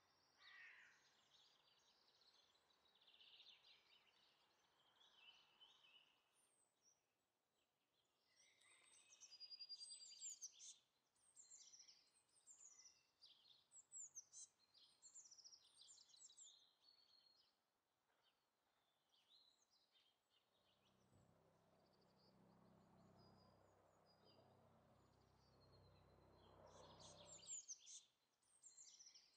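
Faint chirps and calls of small songbirds in scattered runs, with a low rumble lasting about six seconds starting about two-thirds of the way through.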